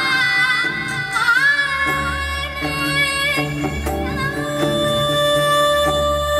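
A woman sings a Bengali song live into a microphone, backed by a band with drums and electric guitar. Her melody is ornamented, with wavering pitch, over a low pulsing beat, and it settles into a long held note about four seconds in.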